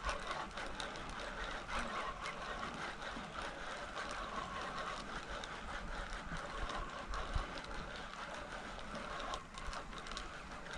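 Fixed-spool surf reel being wound in steadily while a dogfish is played to the pier, a continuous whir with fine rapid clicking that eases about nine seconds in.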